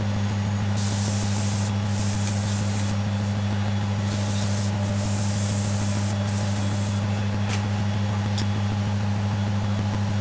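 Wood lathe running with a steady low hum while sandpaper is pressed against the spinning ash hollow form, giving a hiss about a second in and again from about four to seven seconds in.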